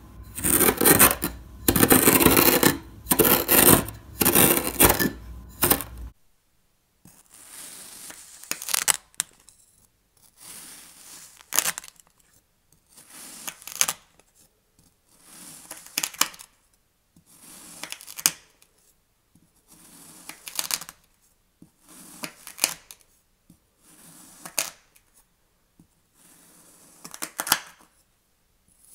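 Dense, loud crunching as a glass is pressed into dark kinetic sand, stopping about six seconds in. Then a kitchen knife slices a block of pink kinetic sand about ten times, one slow crunchy cut every two seconds or so, each ending in a sharp click.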